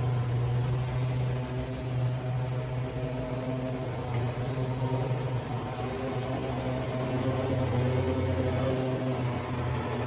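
Steady low hum of an electric motor running, unchanging throughout.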